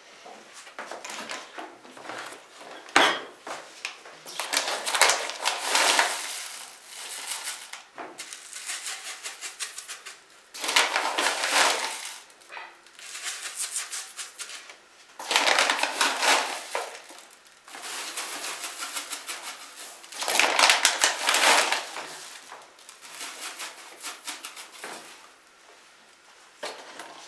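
Granular laundry powder poured from a bag into a plastic basin in a series of short pours a second or two long, the granules hissing onto the plastic, with the bag rustling and a few clicks between pours.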